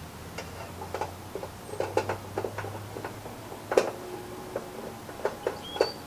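Irregular small plastic clicks and taps as a truck's license plate light bulb and socket are handled and fitted into the housing, with the sharpest snap about four seconds in, over a faint low hum.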